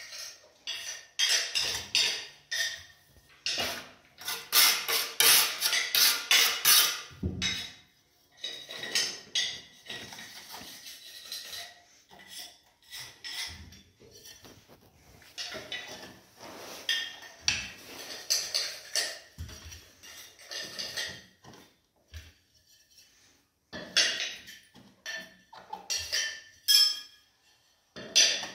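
Ceramic wall tiles clinking and a steel notched trowel scraping against tile and adhesive, in irregular short clicks and scrapes, with a denser stretch of quick clicks and scrapes about four to seven seconds in.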